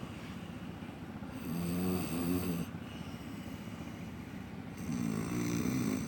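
A sleeping person snoring: two long snores, each about a second and a half, roughly three and a half seconds apart.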